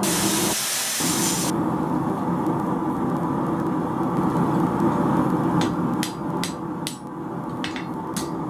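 Steady roar of a gas forge, with a run of sharp metal-on-metal clinks and taps at the anvil starting about five and a half seconds in, as the hot blade is handled with tongs and hammer.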